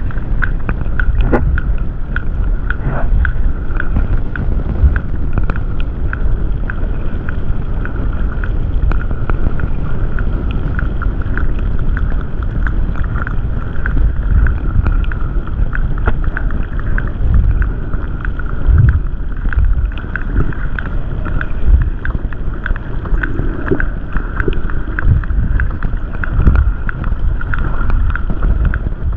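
Sperm whales clicking underwater: many sharp clicks in coda sequences, heard over a steady low rush of water noise.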